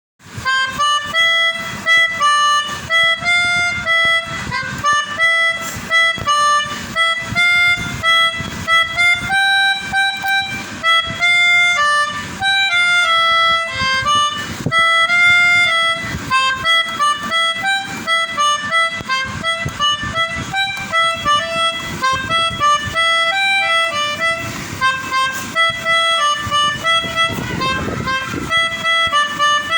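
Pianika (keyboard melodica) playing a telolet tune in the style of a Basuri bus horn: a steady run of short, separate notes.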